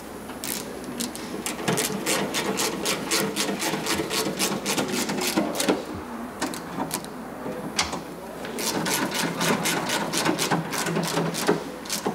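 A hand ratchet clicking rapidly and evenly, about four or five clicks a second, as fasteners on the front inner fender panel are run in. It comes in three runs, with short pauses about six and eight seconds in.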